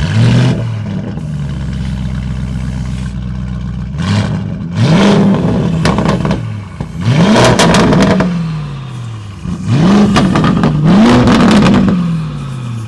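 Lamborghini Urus Venatus by Mansory's twin-turbo V8 through its Mansory exhaust system, firing up cold with a loud flare and settling into a fast idle. It is then revved in three pairs of quick throttle blips, each rising and falling back to idle.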